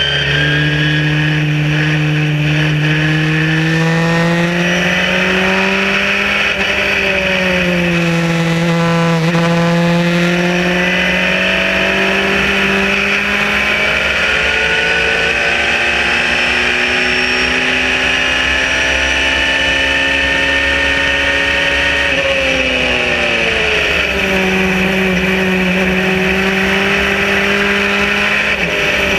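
Sbarro Spyder race car's engine heard from the open cockpit at speed, its note rising and falling with the throttle. It makes a long steady climb through the middle, then drops sharply a little before the end as the car brakes, and holds steady after that. Wind and road noise rush underneath.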